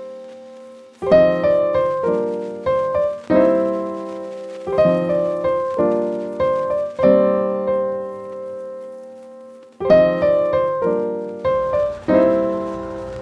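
Background piano music: slow chords struck every second or two and left to ring and fade.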